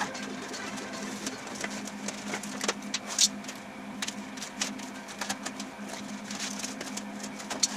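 Irregular clicks, taps and scrapes of hand work over a steady low hum, with one sharper click about three seconds in.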